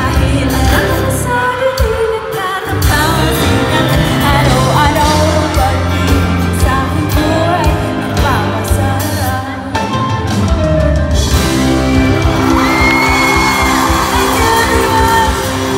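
Live pop performance heard from among the audience: a female singer with a band of electric guitars, bass, keyboard and drums. About eleven seconds in the singing gives way to a held chord from the band, with whoops from the crowd.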